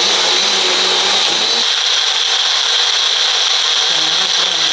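Personal blender motor running at full speed, blending milk, ice cream and chocolate into a milkshake: a loud, steady whir that is switched on just before and runs without a break.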